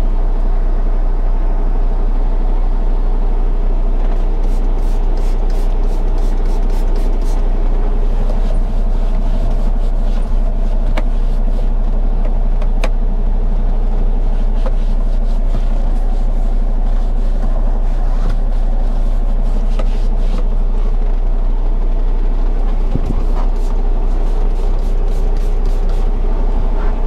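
Diesel truck engine idling steadily, a constant low rumble, with a quick run of faint clicks a few seconds in and a few single ticks later.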